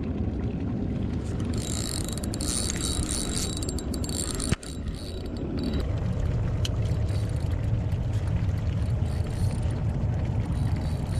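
Shimano Sienna 4000 spinning reel being cranked, a thin whirring whine from about two seconds in that stops around five seconds, over a steady low rumble.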